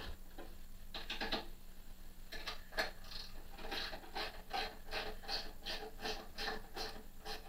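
Ratchet wrench clicking in short, even strokes, about two to three a second, after a brief cluster near the start, as a bolt is run in to mount a readout bracket on the lathe's power box.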